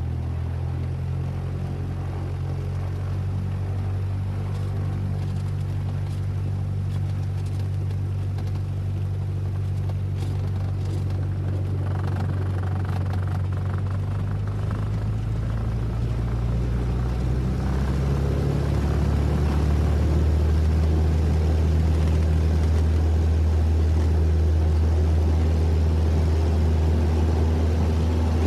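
Single-engine propeller Cessna heard from inside the cabin during takeoff: a steady low engine-and-propeller drone that slowly builds. About two-thirds of the way through, its tone shifts and it grows louder.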